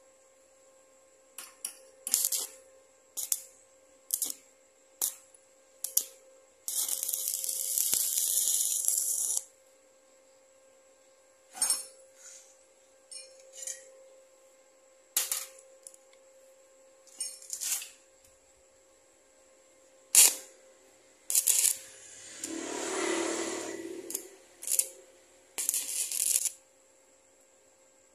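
Short metallic clinks and knocks of tools and metal parts being handled, a dozen or so scattered strikes. A hiss lasting about three seconds comes early in the run, and a fuller rushing noise lasting about two seconds comes near the end, over a faint steady hum.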